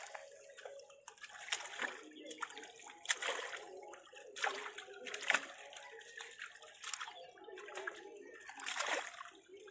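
Irregular splashing and sloshing of shallow water as a net full of live fish is lifted and gathered by hand, the splashes coming every second or so.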